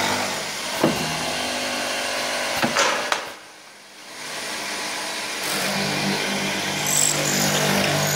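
Woodworking drilling machine running with a steady hum, with a few sharp knocks about a second in and near three seconds. It drops away briefly just after that, then the motor hum comes back.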